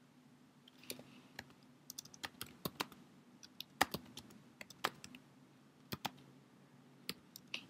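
Computer keyboard typing: a quick, irregular run of key clicks starting about a second in.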